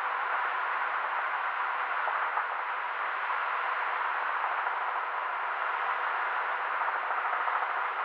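Steady rushing noise of a helicopter in flight, as picked up by a camera mounted on the aircraft, with a faint steady hum underneath and no distinct rotor beat.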